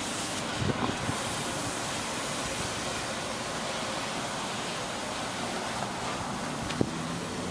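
Steady hiss of background noise with no engine running, with a couple of faint knocks, one just under a second in and one near the end.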